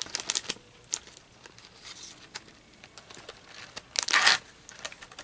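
A Pocky snack pack being opened: the cardboard box and the foil bag inside it crinkling and tearing. A quick run of crinkles comes at the start and a louder crinkle about four seconds in.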